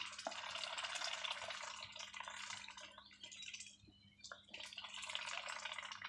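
Domestic ducks dabbling in a feed bowl: a rapid, wet slurping and clicking of bills working through water and mash, easing off briefly about halfway through.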